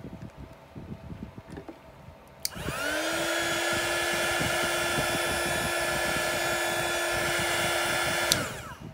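A handheld heat gun clicks on about two and a half seconds in. Its motor winds up to a steady whine over a rush of blown air, then it clicks off near the end and the whine drops away.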